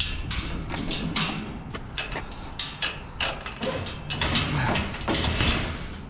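Irregular run of sharp knocks, clicks and rattles, a few a second, from something being handled or worked by hand.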